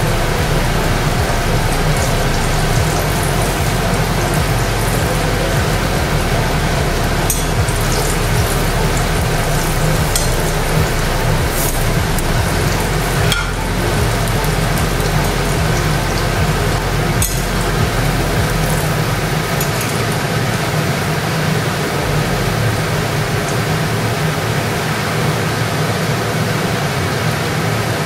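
Green banana kofta balls, dipped in cornflour slurry, sizzling steadily as they deep-fry in oil in a kadai. A spatula taps against the pan a few times.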